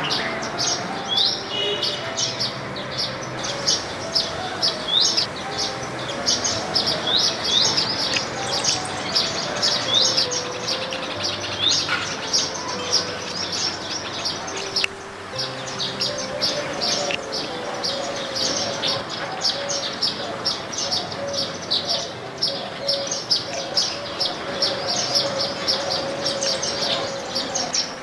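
A flock of Indian silverbills chirping continuously, with many quick, high calls overlapping.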